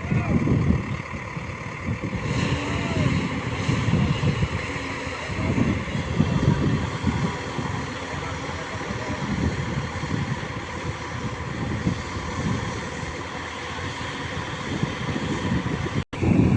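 Heavy diesel machinery running with an uneven low rumble. The audio cuts out abruptly about 16 seconds in.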